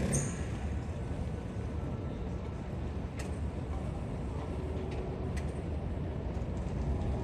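Harbour ambience: a steady low engine rumble under a light hiss, with a few faint clicks.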